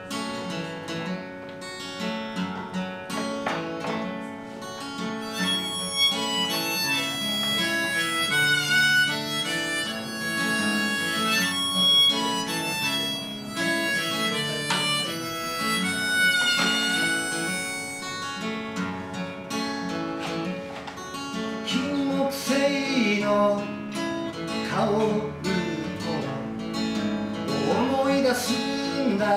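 Acoustic guitar strummed in chords, with a harmonica held in a neck rack playing a melody over it: a solo singer-songwriter's instrumental song intro.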